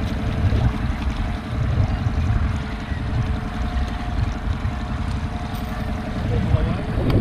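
Strong gusty wind buffeting the microphone on an open small boat at sea: a heavy rumble that swells and drops unevenly.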